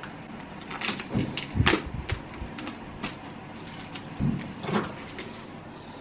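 Handling noises around a new microwave oven: a few knocks and clicks with some rustling of its wrapping, in two clusters, about a second in and again about four seconds in.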